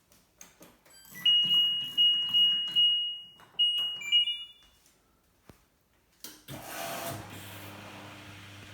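LG washer dryer's electronic beeps: about five loud high-pitched beeps as the machine is switched on and set to run. About six seconds in, a motor starts with a rush of noise and settles into a steady low hum.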